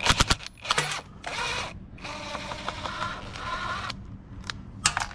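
Cordless DeWalt 20V driver backing out the screws of a scooter's throttle housing: a few short bursts, then a longer run of about two seconds, with sharp clicks near the end.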